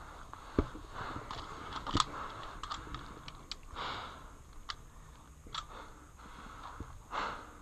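Scattered sharp clicks and ticks, about six at irregular intervals, over soft rustling.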